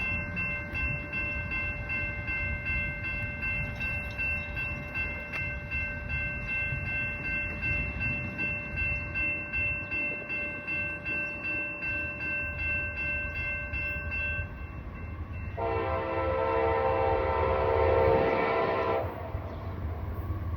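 Train running with a low rumble and a steady high-pitched whine that stops about three-quarters of the way through, then the locomotive's horn sounds one long chord lasting about three seconds near the end, the loudest sound.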